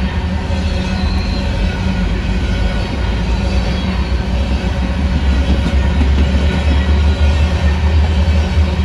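Open-top hopper cars of a long freight train rolling past, a steady rumble of steel wheels on the rails. It grows slightly louder about five seconds in.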